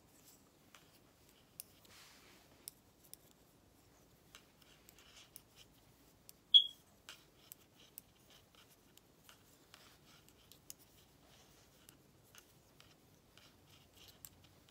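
Knitting needles clicking and scraping softly as stitches are worked in cotton yarn, with one sharp, louder tick about halfway through.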